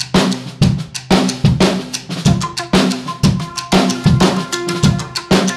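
Drum kit playing a steady rock beat: bass drum and snare drum with cymbals and hi-hat.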